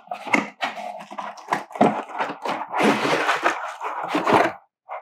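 A cardboard router box being opened by hand: scraping and crackling of cardboard and plastic wrap, with a denser stretch of rustling from about three to four and a half seconds in.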